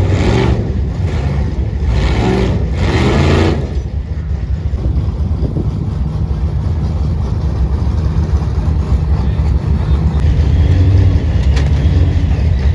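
Ultra4 race buggy engines running, revving in loud bursts during the first few seconds, then a steady low rumble.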